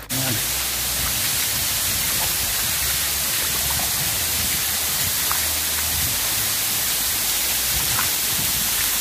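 Runoff water pouring and splashing down into the tunnel: a steady hiss like heavy rain.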